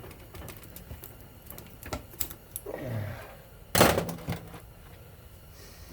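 Small hand tools clicking and scraping against a ceiling fan motor's varnished copper windings as the wire is pried out. A single sharp clack about four seconds in is the loudest sound.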